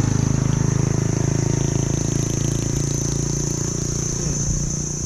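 A small engine running steadily with a fast, even pulse, easing slightly in the second half, over a steady high insect buzz.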